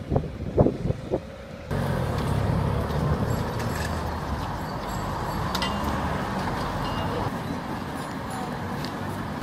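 Street ambience with a steady low rumble of road traffic. There are a few short knocks in the first second or so, and then the sound steps abruptly louder.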